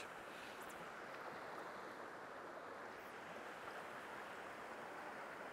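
Faint, steady rush of a fast-flowing river.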